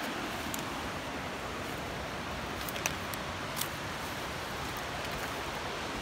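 Steady rushing of high, flood-swollen water, an even hiss that holds level throughout, with a few faint clicks around three seconds in.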